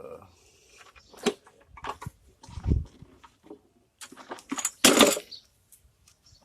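Irregular knocks and clatter of small engine parts being picked up, moved and set down while rummaging through a pile, with a dull thump near the middle and a louder burst of rattling about five seconds in.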